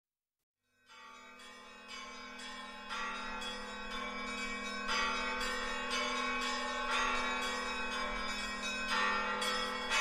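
Church bells ringing, starting about a second in and growing louder, with strikes about twice a second over a steady low hum.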